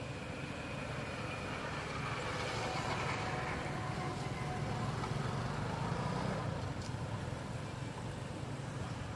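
Low steady outdoor rumble, like a motor vehicle running at a distance, growing a little louder in the middle and easing off again.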